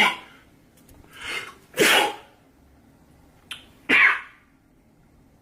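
A man sneezing in a rapid fit: two loud sneezes about two seconds apart, the first after a drawn-in breath, with the tail of another sneeze right at the start.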